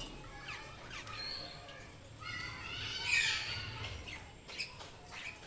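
Budgerigars chirping and chattering in short, quick calls, swelling into a louder stretch of busy warbling chatter about two seconds in.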